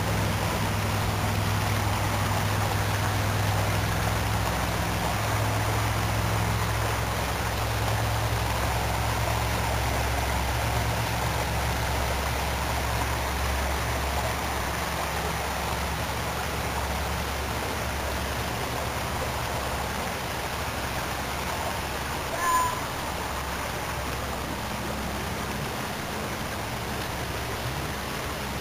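Small stream running over rocks, a steady rush of water. A brief high chirp sounds once, late on.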